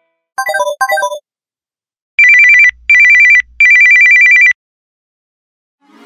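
Samsung Droid Charge ringtones: two quick falling chime phrases, then a fast warbling two-tone electronic trill in three bursts.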